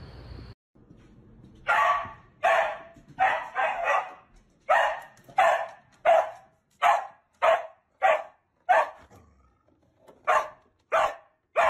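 A dog barking over and over, about one bark every 0.7 seconds, starting about two seconds in, with a short pause near the end before the barking resumes.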